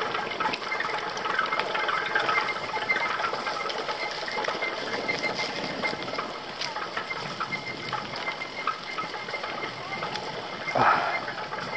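Carrera e-bike rattling and jolting over a rough dirt path, with a faint steady whine. A short louder sound comes near the end.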